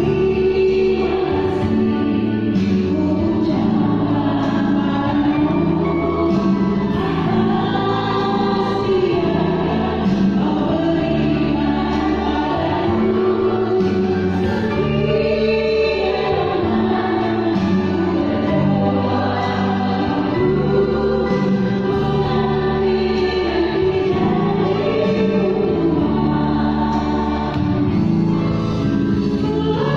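Virtual choir singing a song in part harmony, the voices layered from separately recorded singers.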